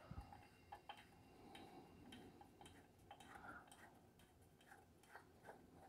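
Near silence with a few faint, scattered clicks and ticks from hands working an OTC cylinder leakage tester as its air pressure is let off.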